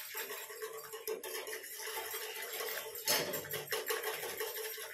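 Wire balloon whisk spun back and forth between the palms in a steel saucepan of hot milk, swishing through the milk and clicking against the pan as it froths it, with a louder clink about three seconds in.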